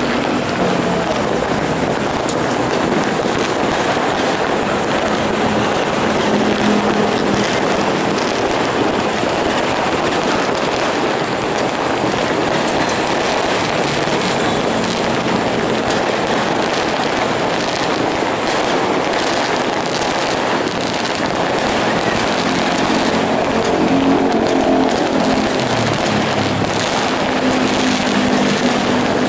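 Dense, steady din of New Year fireworks crackling mixed with diesel locomotive horns, whose held notes stand out more clearly during the last several seconds.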